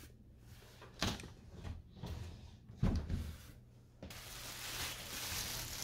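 A few dull knocks and bumps from a heavy massage chair being tipped and settled on its back wheels on a wood floor, the loudest about three seconds in. A steady hiss starts suddenly about four seconds in.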